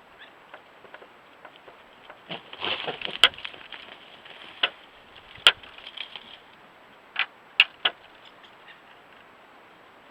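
Javelina clacking their upper and lower canine teeth together: irregular sharp clicks, with a rapid rattling run of clacks about two and a half seconds in and several single loud clacks after it.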